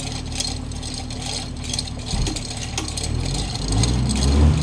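A vehicle engine running steadily, getting louder over the last second or so, with light metallic clicks and rattles over it.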